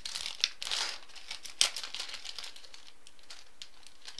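Soft plastic card sleeves crinkling as they are handled, with one sharp click about a second and a half in, then quieter intermittent rustling.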